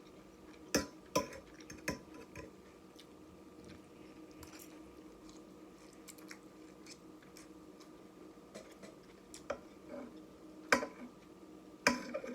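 Eating sounds: utensils clicking sharply against a dish, a few times near the start and again near the end, with quiet chewing between.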